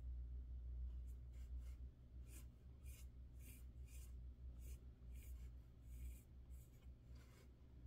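Pen scratching across sketchbook paper in about a dozen short drawing strokes, starting about a second in, over a low steady hum.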